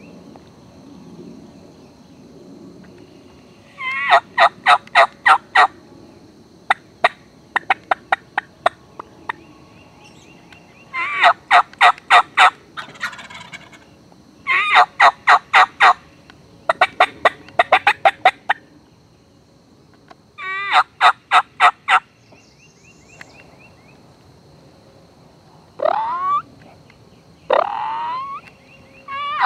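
Wild turkey gobblers gobbling over and over, each gobble a rapid rattling burst about a second long, some loud and some fainter, as from several toms. Near the end come two short rising calls.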